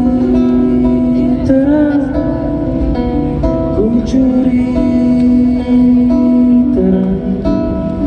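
Live acoustic guitar strumming with a violin playing long held notes that slide up in pitch now and then.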